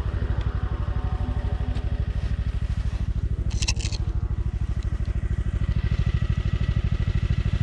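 Snowmobile engine running steadily at low revs with an even, rapid pulse. About halfway through there is a brief crunch of snow.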